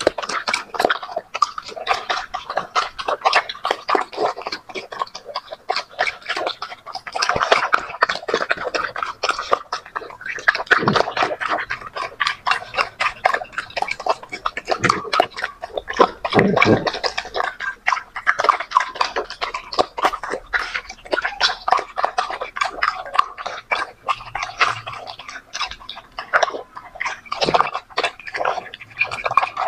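Two puppies eating noodles from a plastic tray: fast, wet chewing and smacking, a dense irregular run of small clicks and slurps that never stops.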